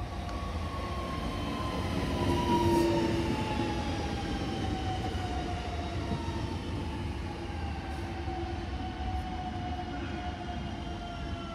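45WEa electric multiple unit pulling into the platform, its traction motor whine falling steadily in pitch as it slows, over a low rolling rumble. It is loudest about two to three seconds in as the cars pass close.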